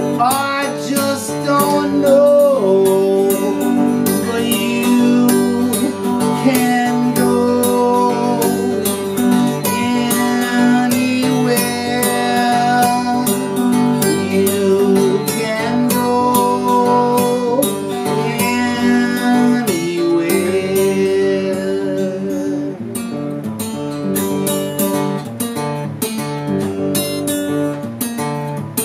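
Steel-string acoustic guitar played solo, picked and strummed in a steady rhythm, with a voice singing along at times.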